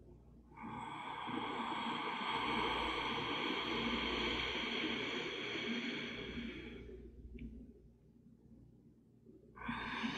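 Slow, audible breathing: one long breath lasting about six seconds that swells and fades, a pause of a few seconds, then the next breath starting near the end. The breath is paced in counted breathing with holds between inhale and exhale.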